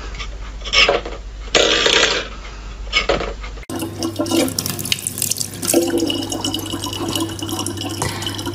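Three short, loud bursts of noise, then, from about four seconds in, a thin stream of tap water running steadily into a plastic bottle over a low steady hum.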